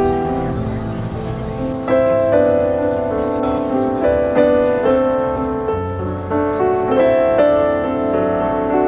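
Music led by a piano melody, single notes and chords struck at a moderate pace.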